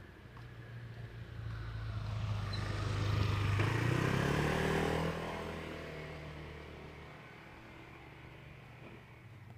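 A motor vehicle drives past: its engine and tyre noise grow louder over the first few seconds, peak around the middle, then fade away.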